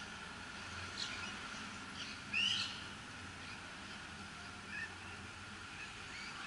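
Birds calling: a few short chirps and one louder call about two and a half seconds in, over a steady faint background hum.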